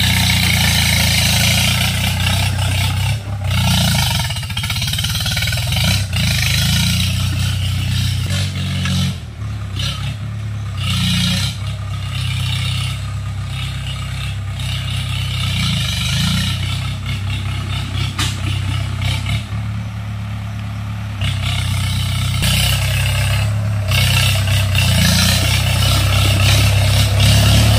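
Swaraj 843 XM tractor's three-cylinder diesel engine running steadily under load while pulling a disc harrow through soil. It grows quieter in the middle as the tractor moves off, then louder near the end as it comes close again.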